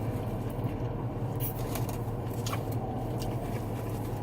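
A man chewing a mouthful of fried chicken tender, with a few faint scattered mouth clicks over a steady low hum.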